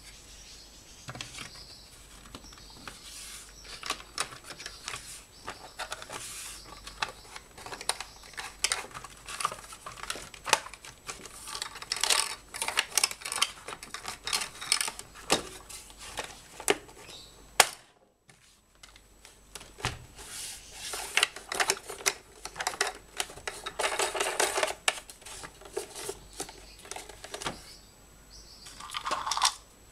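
Irregular plastic clicks, taps and scraping from an EUROE electric grass trimmer's plastic motor housing as its shell halves are fitted over the motor and pressed together by hand.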